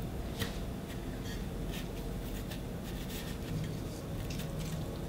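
Hands pressing and turning a piece of egg-washed chicken in saltine-cracker and flour breading on a plate: soft, scattered rustling and scratching.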